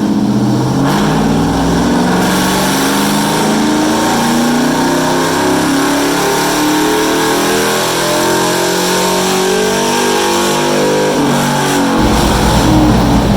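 2012 Chevrolet Silverado pickup's engine making a full-throttle pull on a chassis dyno, its pitch climbing steadily for about ten seconds, then dropping back suddenly near the end as the throttle closes. The pull is on a first custom tune with a flat 15 degrees of timing, a little on the lean side.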